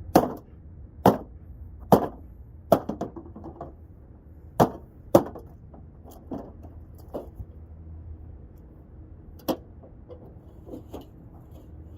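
A series of sharp, hard knocks and blows, about one a second at first and loudest in the first half, then fainter and more scattered, as the microwave oven is struck and broken apart.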